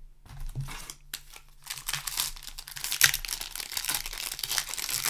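Foil booster pack wrapper crinkling and tearing as it is handled and ripped open, with a sharp loud crackle about three seconds in.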